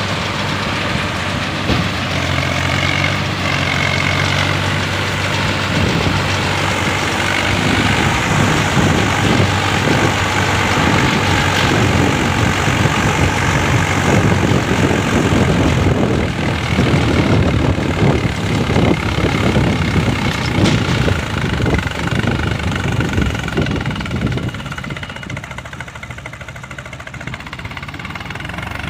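Swaraj 963 tractor's diesel engine running steadily while driving a round baler, with a dense rapid clatter from the baler through the middle; the sound eases off a few seconds before the end.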